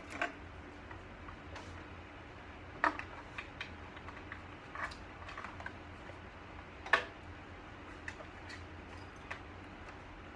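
Irregular clicks and knocks of hard parts being handled on a computer cart's monitor mount and cabling. There are three louder knocks, just after the start, about three seconds in and about seven seconds in, over a low steady hum.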